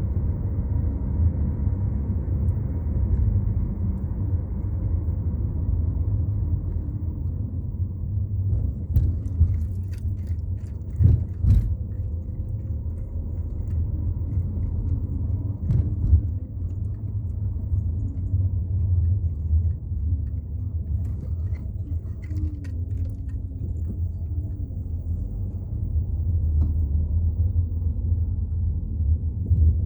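Sea waves at a beach, heard as a steady low rumble, with a few short knocks about ten to twelve seconds in and again around sixteen seconds.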